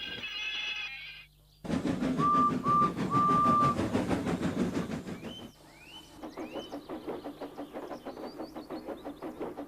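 Train sound effects: a train whistle gives three short toots at one pitch over a loud rattling train noise. After a brief dip about five seconds in, a steady rhythmic clatter of about four beats a second follows, with a few short rising squeals.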